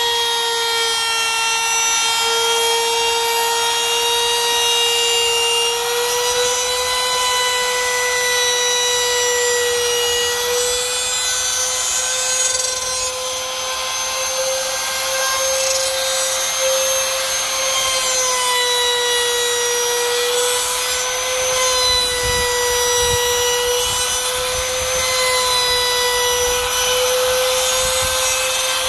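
Drill Master trim router running at full speed, its V-bit cutting a groove into the slot of an aluminum extrusion. It makes a steady high whine over a hiss of cutting, and the pitch wavers slightly as the router is pushed along.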